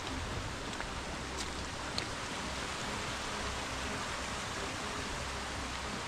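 Small mountain stream trickling and splashing over rocks, a steady watery hiss with a couple of faint ticks.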